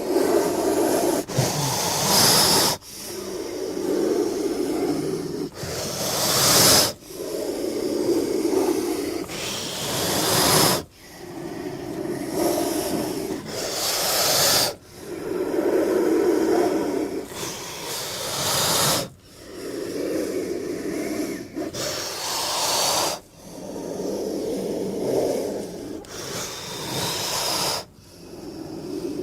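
A king cobra hissing in long repeated breaths, about one every four seconds. Each breath joins a low, deep hiss with a sharper, higher rush of hiss.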